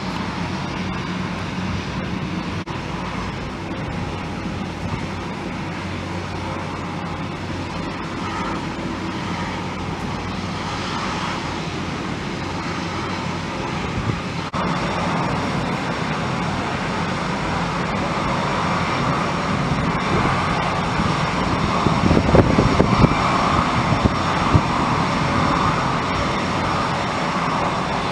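Jet airliner engines running, a steady rushing noise that steps up suddenly about halfway through and swells to its loudest a little later.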